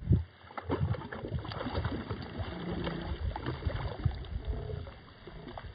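A hooked fish thrashing at the water surface on a taut line, with irregular splashing and slaps.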